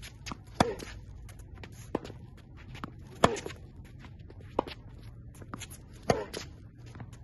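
Tennis rally of crosscourt forehands on a hard court: rackets strike the ball with a sharp pop every second or so, the loudest about every three seconds, with light footsteps and shoe scuffs on the court between the hits.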